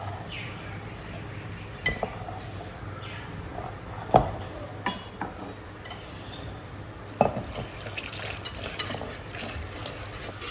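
Kitchen work: scattered clinks and knocks of dishes and utensils, about five sharper ones among lighter handling noises, over a low steady hum.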